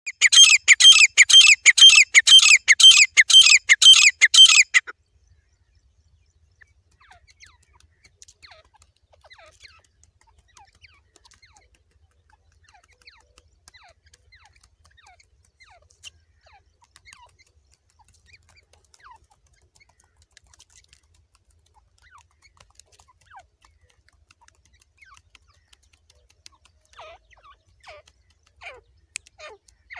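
A teetar (francolin), billed as a female, calling in a rapid run of loud, harsh notes, about three a second, for the first five seconds. Then only faint, scattered chirps follow, until calls pick up again near the end.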